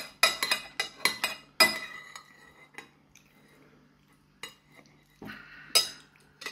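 Metal spoon scraping and clinking against a white ceramic bowl, scooping up the last of the porridge. There is a quick run of sharp, ringing clinks in the first second and a half, then a few scattered ones, the loudest near the end.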